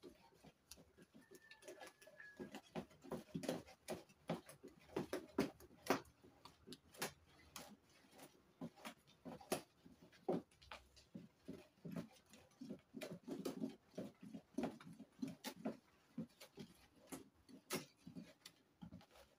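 Plastic paddle stirring detergent mixture in a plastic basin: irregular knocks and taps of the paddle against the basin, a few a second, with the liquid swishing between them. The mix is being stirred to dissolve industrial salt that is still in particles.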